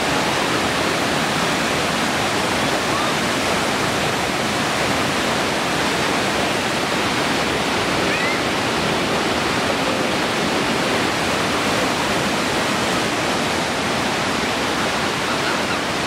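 Waterfall: water pouring and splashing over rocks in a steady, loud rush.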